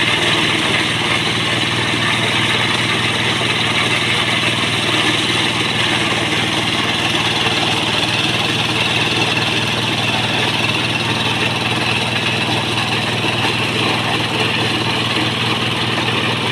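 A corn sheller driven by a single-cylinder Kubota diesel engine, running steadily under load as ears of corn are fed through. The engine's steady beat sits under a dense, even threshing noise.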